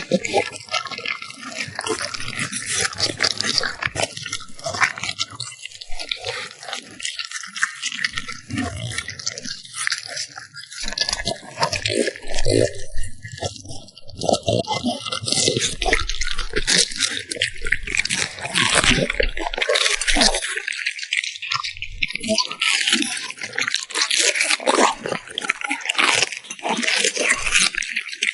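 French bulldog puppy chewing food, a rapid run of wet, crunchy chews and mouth smacks.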